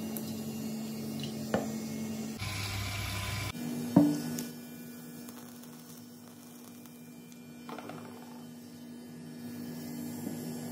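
Steady low electrical hum, with a few faint clicks and one sharp click about four seconds in.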